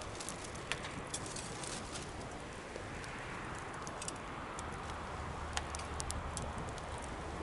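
Bonfire crackling: a steady rush of flames with sharp, irregular pops and snaps. A low hum joins about two-thirds of the way in.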